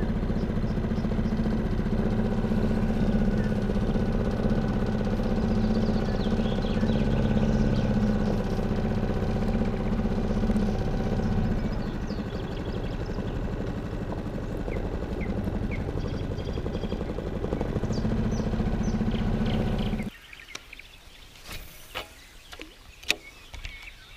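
A motor engine running steadily, which cuts off suddenly about twenty seconds in, leaving quiet outdoor ambience with birds chirping.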